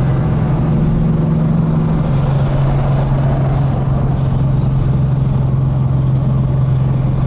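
Tuned 2017 Ford Mustang GT's 5.0-litre V8 running at a steady low engine speed, an even deep drone with no revving. The tone steps slightly lower about two seconds in.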